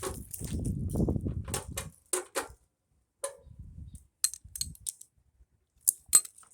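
Hand work on a car heater box with small hand tools: about two seconds of rubbing and scraping, then a string of sharp, irregular clicks and taps from the tools and small fastener parts.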